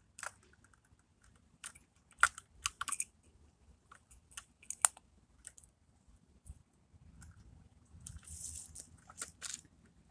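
Irregular small clicks and clacks of a hand working a First Gear rear-loader garbage truck model and setting a miniature trash bin down on pavement, with a short scraping rustle about eight seconds in.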